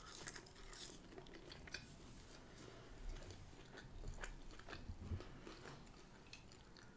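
Faint chewing of McDonald's fries, with soft, scattered wet mouth clicks.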